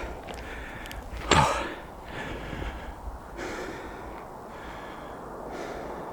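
A man breathing hard from climbing through deep snow, with one loud voiced exhale falling in pitch about a second in.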